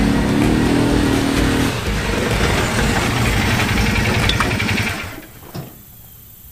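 Side-by-side UTV engine running as it drives up, then dying away about five seconds in, followed by a single click.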